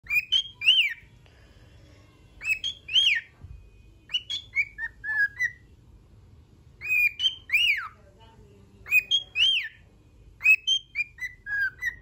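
Cockatiel singing: groups of loud whistled notes that arc up and down in pitch, each phrase lasting about a second, repeated every couple of seconds. It is the warbling song a cockatiel gives when happy.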